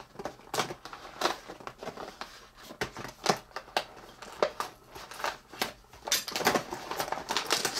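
Plastic blister toy packaging being handled, crinkling and clicking in irregular snaps.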